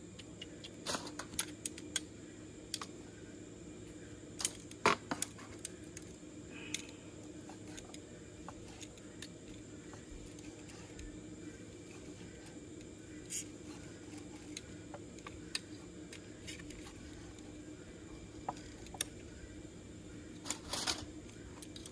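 Sporadic light clicks and clinks of metal utensils handled over a plate of grilled steak before carving, over a faint steady hum. The loudest clinks come about five seconds in and near the end.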